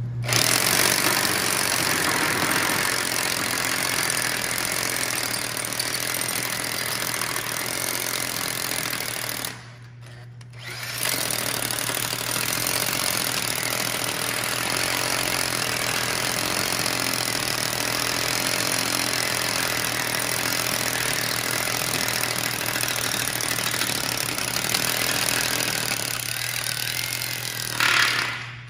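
Corded electric hammer drill boring into a concrete floor, running steadily, pausing for about a second and a half around ten seconds in, then running again until it stops near the end.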